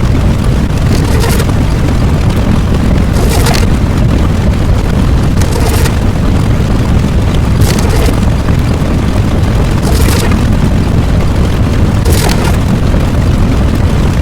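Loud, continuous low rumbling noise with a brief hissing surge about every two seconds, cutting off abruptly at the end.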